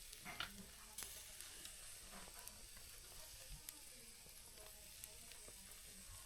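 Fish grilling over a barbecue: a faint, steady sizzle with scattered sharp crackles and pops.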